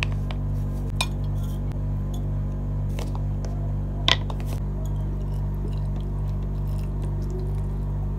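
Glass teapot pieces clinking as they are handled: a few light glass knocks, the loudest a ringing clink about four seconds in. Background music with a steady low drone plays underneath.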